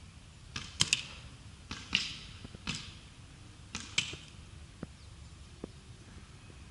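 Paintball markers firing: about eight sharp pops, mostly in quick pairs, over the first four seconds, followed by two fainter ticks.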